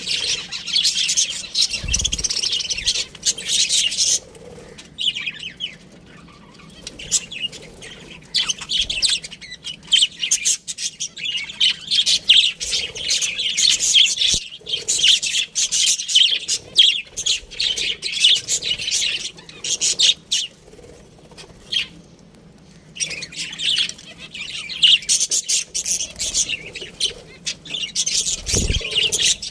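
Budgerigars chirping and chattering in rapid, dense spells broken by short lulls. There is a brief low thump about two seconds in and another near the end.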